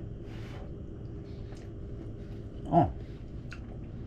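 A man eating a hot mouthful of fish and ravioli: a breath out just after the start, then small wet mouth clicks of chewing, and a falling 'oh' exclamation about three quarters of the way in, over a steady background hum.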